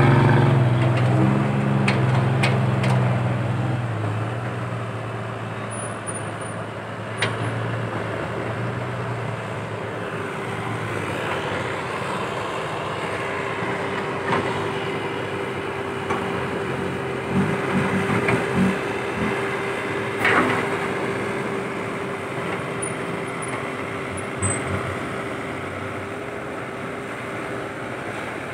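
Diesel engine of a dump truck loaded with sand, pulling away over dirt, loud at first and fading over the first several seconds as it drives off. A few sharp knocks are heard, and a steady hum runs through the middle.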